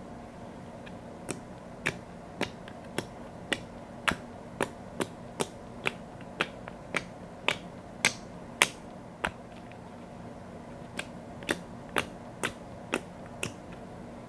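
Clear slime being pressed and worked by hand, giving sharp wet clicking pops about twice a second: a long even run, a pause of nearly two seconds, then a short run of six more.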